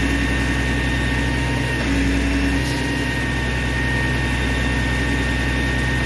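Heavy truck engine running steadily to drive a hydraulic tie-handling grapple crane, with a steady high whine above the engine note.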